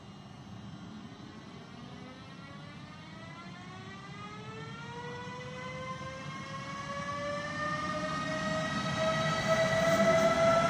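Siemens Vectron electric locomotive pulling away and speeding up, its traction converters giving a whine of several pitches that climb together. It grows louder as it nears and passes, over a low rumble of wheels on the rails.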